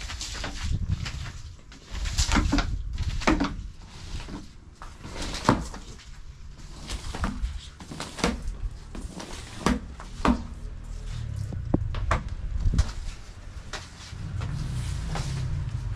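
Irregular knocks and clatters, a dozen or so sharp ones spread through, over a low rumble that swells and fades.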